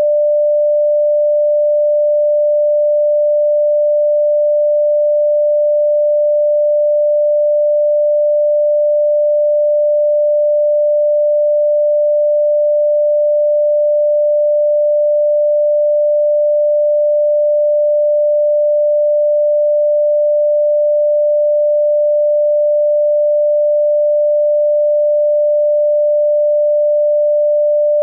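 A steady, unchanging pure electronic tone: a single mid-pitched note with no overtones, held at constant loudness.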